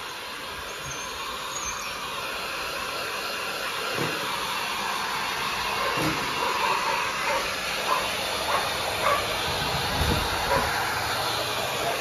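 Small handheld hair dryer blowing steadily, its hiss growing louder as it comes closer, with a few dull bumps in the second half.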